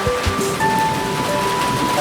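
Steady rain, mixed with background music: a melody of held notes, one long note sustained from about half a second in.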